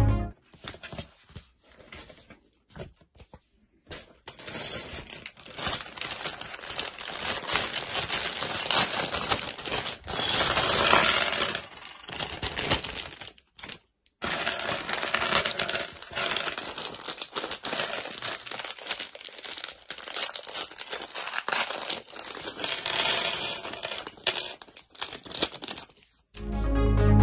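Clear plastic LEGO parts bag crinkling as it is handled and opened, with plastic bricks clicking and rattling onto a tabletop. The first few seconds hold only a few scattered clicks of pieces being set down.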